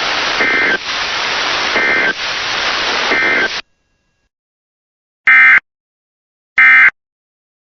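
Radio static hiss with three short Emergency Alert System data-tone bursts in it, about 1.3 seconds apart: the end-of-message code that closes the alert. The static cuts off at about three and a half seconds, and after a pause two louder, clean bursts of the same warbling data tones follow a little over a second apart.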